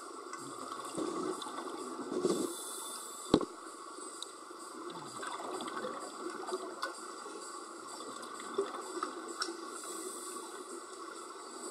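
Underwater sound around a scuba diver: a steady hum with short rushes of exhaled bubbles, and one sharp click about three seconds in.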